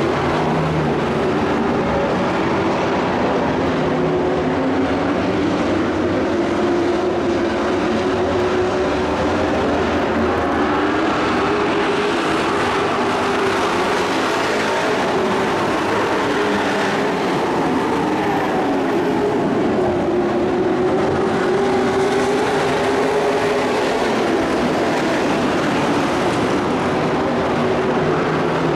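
Several dirt-track stock pickup race trucks running together around the oval, a steady engine drone whose pitch keeps rising and falling as the trucks go through the turns and down the straights.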